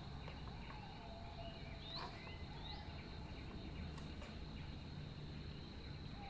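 Faint outdoor background with a few distant bird chirps and a thin steady high whine, such as insects make, over a low hum.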